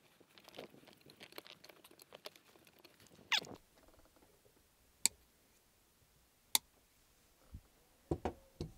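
Hands working a car wiring loom: wires and plastic connectors rustling and clicking faintly, a cable tie zipped tight about three seconds in, then two sharp clicks about a second and a half apart and a few soft knocks near the end.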